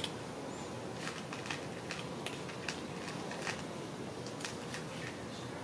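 A cat eating dry kibble from a plastic bowl: irregular small crunches, about two or three a second, over a steady background hiss.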